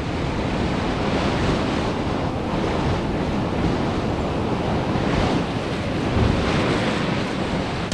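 Steady rush of wind over the open sea, with waves breaking and washing.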